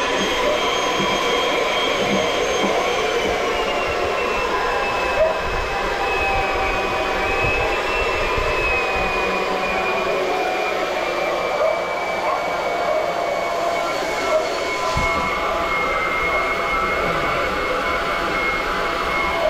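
Small electric pump running steadily while draining a water heater, with a whine that slides slowly lower. Water is barely coming through the heater's plastic drain valve, so the pump is poorly fed.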